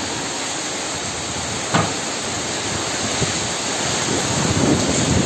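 Heavy rain pouring steadily, a dense even hiss, with a single brief knock about two seconds in.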